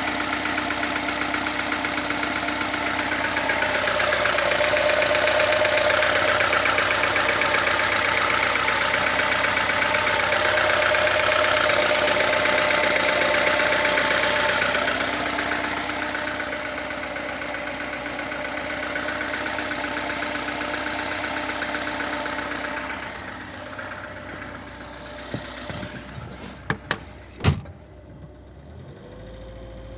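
VAZ-2107 four-cylinder engine running with an unidentified knock, growing louder about four seconds in and fading away after about twenty seconds. A few sharp clicks and a single louder thump follow near the end.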